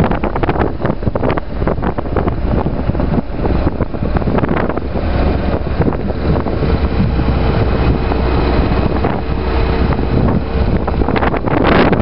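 Wind buffeting the microphone of a moving BMW GS motorcycle, over the low rumble of its engine running at road speed.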